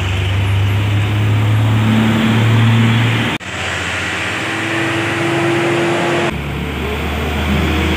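Truck engines running steadily as trucks come down a bend and pass close by. The sound changes abruptly twice, about a third of the way in and again past the middle, where the footage is cut from one passing truck to the next.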